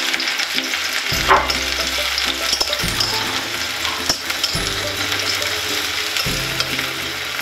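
Finely chopped onion sizzling in oil in a steel kadai, stirred with a spatula that scrapes and clicks against the pan now and then.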